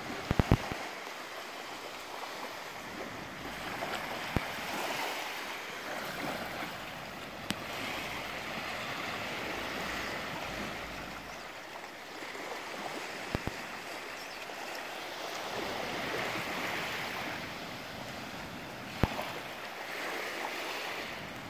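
Small waves lapping and washing onto a sandy, rocky shoreline, swelling and easing every few seconds, with a few sharp clicks in between.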